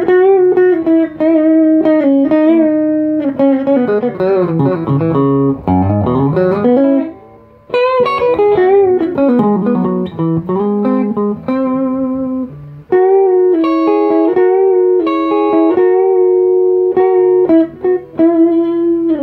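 Eastwood Airline '59 reissue electric guitar with humbuckers, played clean and dry through a Yamaha Stagepas 600i PA speaker with no effects: a crisp, clean tone. It plays melodic lines of held notes with a quick run, pauses briefly about eight seconds in, and ends on a held note that slides down in pitch as it cuts off.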